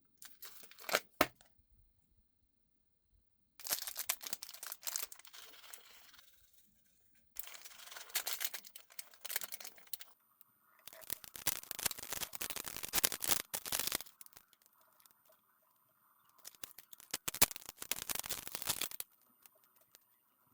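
Slime mixed with foam beads and bingsu beads being worked in the hands, crackling and popping in four bouts of a few seconds each. There are a couple of sharp clicks about a second in.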